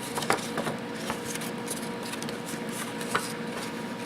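Thick paper being folded and pressed along its creases by hand: soft rustling with a couple of light taps.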